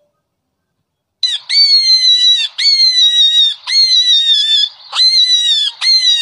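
Rabbit squeals: after about a second of silence, five high-pitched squeals in a row, about one a second. Each opens with a quick upward sweep and then holds a slowly falling note.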